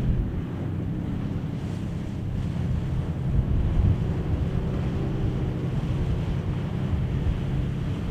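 Wind blowing on the microphone: a steady low rumble, with faint steady hums underneath.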